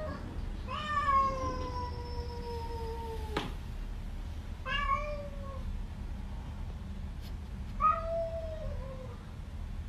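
Domestic cats meowing at each other: one long drawn-out meow that slowly falls in pitch, then two short meows about five and eight seconds in.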